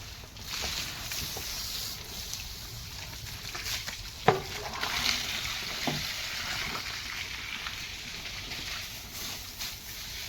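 Water splashing and running as buffaloes are washed, a steady hissing wash for most of the time. A sharp, sudden sound with a falling pitch cuts in about four seconds in and is the loudest moment.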